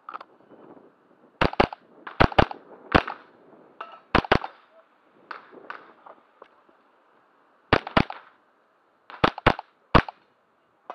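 AR15-22 rimfire rifle (.22 LR) firing twelve sharp cracks, mostly in quick pairs about a fifth of a second apart, with gaps of up to three seconds between groups.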